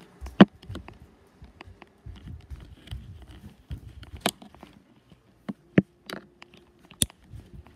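Handling noise of a phone held against fabric: scattered sharp clicks and knocks over low rustling and rubbing, with the loudest knocks about half a second in, at about four seconds, and near the end.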